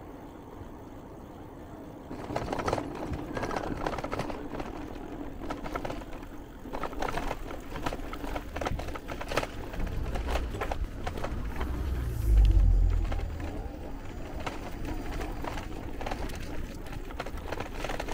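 Bicycle rattling and clattering as it rolls over cobblestones, a dense stream of rapid jolts that starts about two seconds in. A heavy low rumble swells briefly about two-thirds of the way through.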